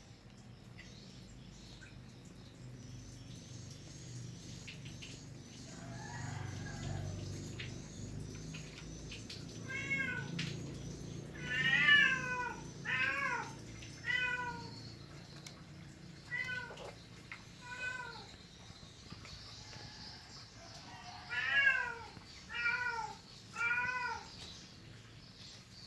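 Hungry kitten meowing, about ten short calls each rising then falling in pitch, coming in two bunches from about ten seconds in. Faint high chirping can be heard before the meows start.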